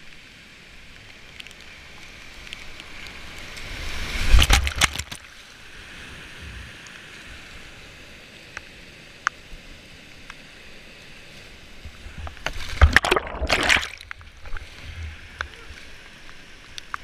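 Whitewater rushing and sloshing around a kayak as it is paddled down a rapid, with louder bursts of splashing about four seconds in and again around thirteen seconds.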